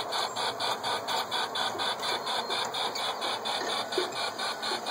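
G-scale model trains running on track, giving a steady, fast, even clicking of about five clicks a second. A faint short note repeats about twice a second from about three and a half seconds in.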